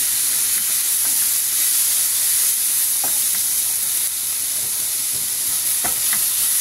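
Sliced onion and garlic sizzling steadily in hot lard and vinegar in a frying pan, stirred with a wooden spoon that knocks against the pan a few times, about halfway through and near the end.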